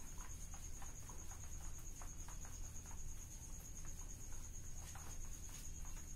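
Whiteboard duster wiping across the board, a faint scrubbing with small scattered scuffs. A steady high-pitched tone and a low hum carry on underneath.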